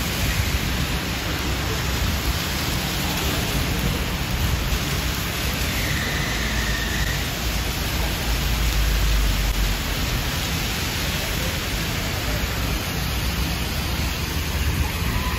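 Heavy rain pouring down in a storm, a steady hiss with a deep rumble underneath that swells about eight to ten seconds in.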